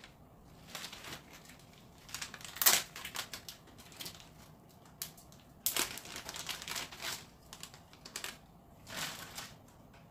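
Plastic packaging crinkling and rustling in irregular bursts as new underwear is unwrapped by hand, loudest about a quarter of the way in.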